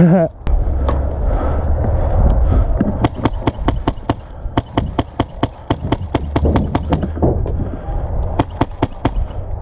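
Airsoft rifle firing a rapid string of sharp semi-automatic shots, about four or five a second, pausing briefly and then firing a few more near the end. Low rumble of movement and wind on the microphone comes before the shots.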